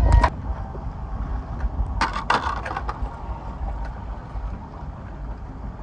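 Wind rumbling on the microphone of a moving boat, loud at first and dropping off abruptly a moment in. A short cluster of sharp cracks comes about two seconds in.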